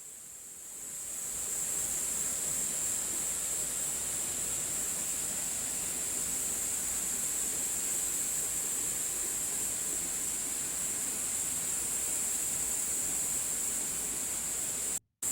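Steady rushing of a mountain valley stream with a constant high hiss on top. It swells in over the first couple of seconds and cuts off abruptly just before the end.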